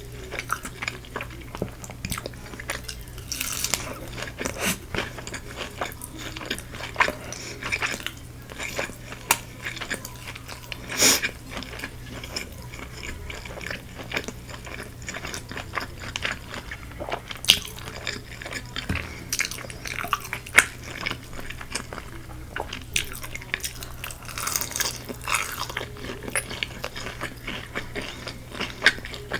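Close-up biting and chewing of crispy Korean fried chicken, with many irregular crunches of the fried coating, a few of them louder.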